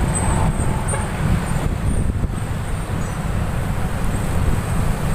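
Road traffic at a bus terminal: bus, minibus and motorbike engines running and moving past. The sound is a steady, heavy, uneven low rumble.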